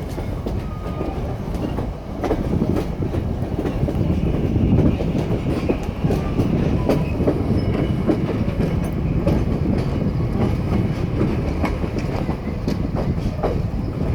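Train rolling along the track, heard from aboard a passenger car: a steady rumble with scattered clicks and clacks of the wheels over the rail joints.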